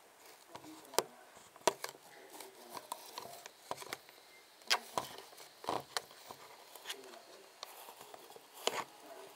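Handling noise from a phone being repositioned close to its microphone: irregular taps, knocks and fingers rubbing against it, with about five louder knocks spread through.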